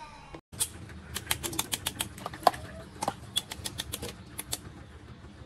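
Kitchen knife scraping and cutting a piece of raw chicken held in the hand: a rapid, irregular run of sharp clicks that stops near the end.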